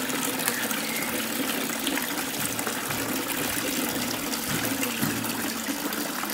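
Water pouring into a koi pond from an inlet, a steady splashing gush.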